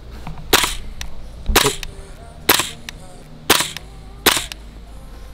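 Airsoft gun firing single sharp shots, five of them about a second apart, each with a short ringing tail.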